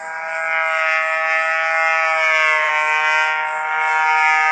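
Aerobatic display plane trailing smoke, flying overhead: its engine drone swells loud within the first second and holds, then slowly drops in pitch as it passes.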